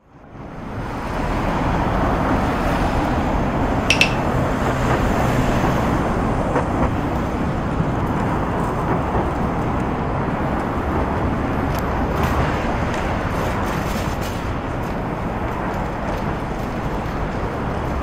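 Steady city street noise with road traffic, fading in at the start. A short sharp clink stands out about four seconds in.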